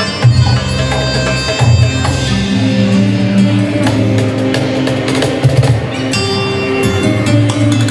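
Arabic belly-dance music played with drum percussion and a strong, pulsing bass.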